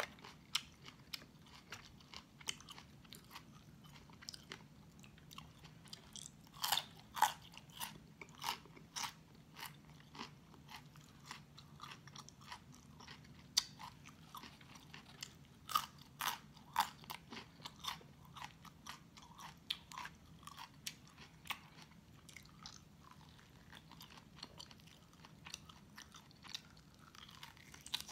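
Close-up crunching and chewing of raw cauliflower: crisp, irregular crackles of bites and chewing, densest about a quarter of the way in and again just past the middle.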